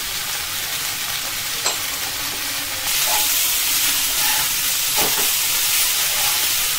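Chopped vegetables and sweet corn sizzling on high heat in a nonstick wok, stirred with a steel spatula. The sizzle gets louder about three seconds in, and there are a couple of light spatula scrapes and taps against the pan.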